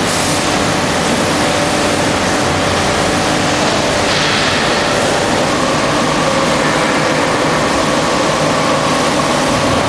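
Steady machine noise from a hydraulic wheelset press running: an even hiss with a low hum beneath, and a faint steady whine that comes in about halfway.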